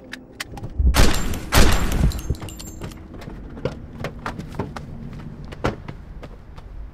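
Two loud bangs about half a second apart, each with a long noisy tail, followed by scattered light clicks and knocks.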